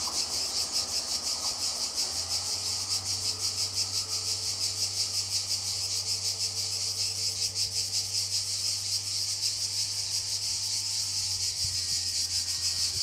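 Insects chirring in a steady, high, fast-pulsing chorus. Under it, the low hum of the level-crossing barrier motors comes in about two seconds in and stops near the end as the barriers lift.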